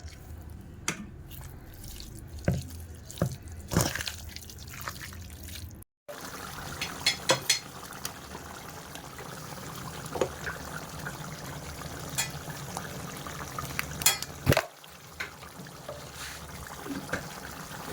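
Kitchen sounds of liquid being handled, with scattered sharp clicks and knocks over a steady low background. The sound drops out completely for a moment about six seconds in.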